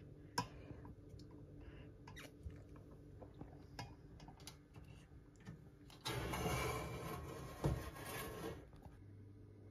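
Bamboo skewers of marinated chicken being handled and laid on a griddle pan, making scattered light clicks and taps. About six seconds in, a louder rushing noise starts and lasts about three seconds, with a single thump in the middle.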